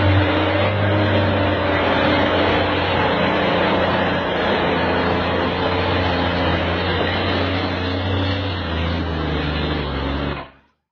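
Steady, loud running of a heavy vehicle's engine with a low hum and mechanical noise, which cuts off abruptly near the end.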